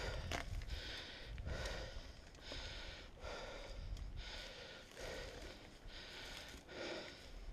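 A person breathing hard and fast in a steady rhythm, about one breath in or out every second, over a low rumble of wind and movement on the camera microphone.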